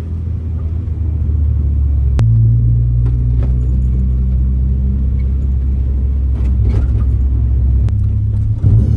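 Stock 1.6-litre four-cylinder engine of a 1990 Mazda Miata on solid mounts, running steadily at low revs while cruising, heard from inside the cabin. The engine note steps up about two seconds in and shifts again near the end, with a few light rattles in between.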